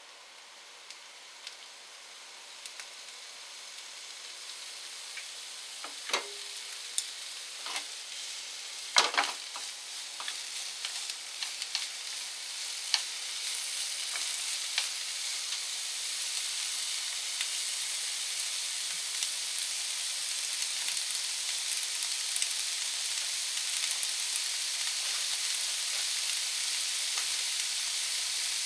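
Green peppers stir-frying in a pan, the sizzle growing steadily louder. A utensil clacks against the pan several times in the first half.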